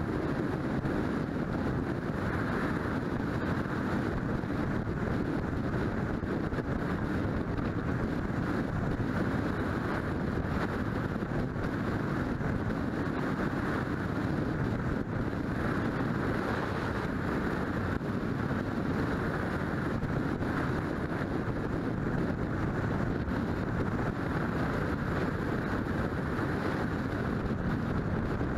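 Steady rush of wind and road noise from a car driving along a paved highway, picked up by a GoPro Hero3+ camera's microphone.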